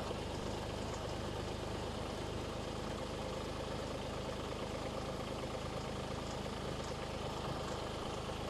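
Kubota B2301 compact tractor's three-cylinder diesel engine running steadily while it pulls on a line tied to a tree.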